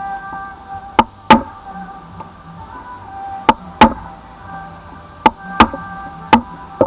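Hammer blows on a chisel held upright against the work: eight sharp strikes, mostly in pairs. Background music plays throughout.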